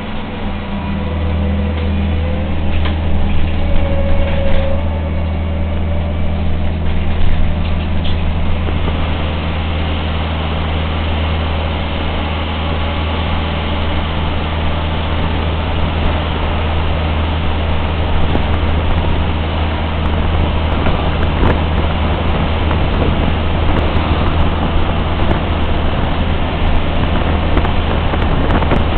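Cabin of an articulated electric trolleybus on the move: a steady low hum under road and body rumble, with a short rising whine a few seconds in and light clicks and rattles in the second half.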